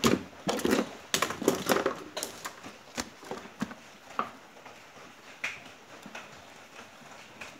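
Handling noise of a sheet of paper rustling and being laid down on the workbench, loudest in the first couple of seconds. Then scattered light taps and scratches as a ballpoint pen writes on the paper.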